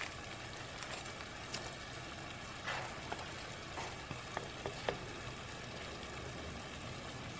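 Chicken pieces and uncooked rice sautéing in oil in a stainless steel skillet with a faint, steady sizzle. A wooden spatula stirs through them, giving a few light clicks and short scrapes.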